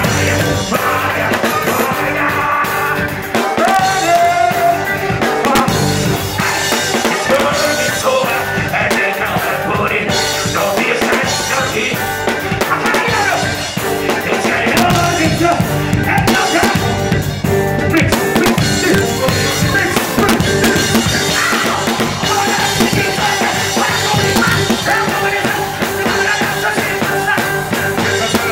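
Live reggae band playing loud on stage, with the drum kit and cymbals close by and a singer's voice in the mix.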